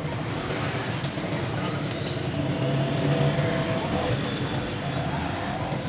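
Steady background rumble and hum, like vehicle traffic, with no distinct strikes or starts.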